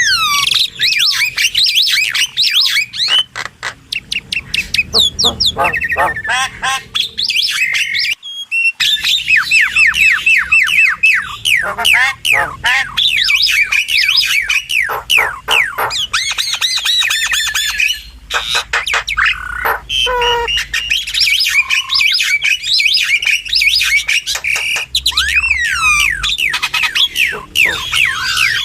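Starlings of the myna group calling continuously: a dense, loud run of rapid falling whistles, harsh squawks and chattering clicks, with a brief break about eight seconds in.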